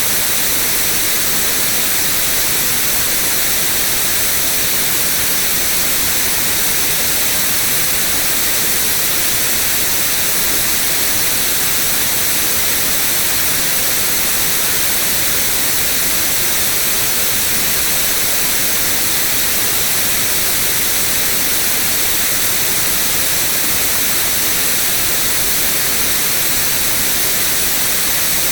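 Steady white noise: an even, unchanging hiss, strongest in the high range.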